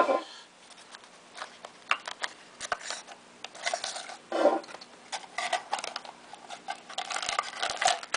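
A trading card pack being opened and handled: the wrapper crinkles and tears, and the cards rustle and click as they are handled.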